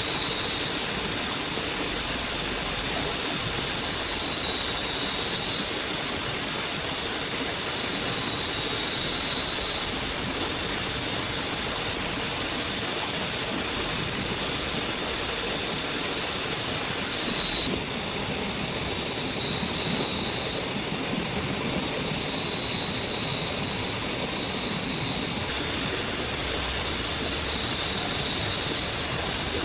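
Steady heavy rain in a forest, with a high-pitched whine over it that pulses quickly for a while in the middle. The sound changes abruptly twice, a little quieter and duller from about 18 to 25 seconds in.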